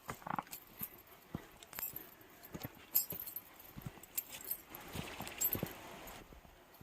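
Footsteps of a person walking, irregular soft knocks, with a brief rustling scrape about five seconds in.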